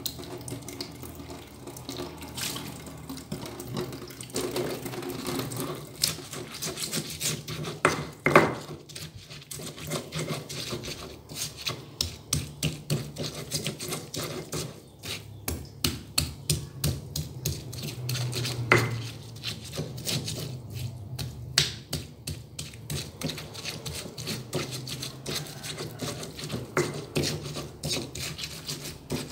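Stone pestle crushing and grinding garlic, turmeric, coriander and salt in a flat stone mortar, knocking and scraping stone on stone. There are scattered strokes at first, then from about ten seconds in a steady run of roughly two strokes a second.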